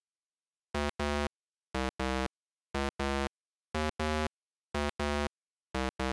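Synthesizer music: a short electronic two-note figure, a quick note followed by a longer one, repeated about once a second with dead silence between the pairs.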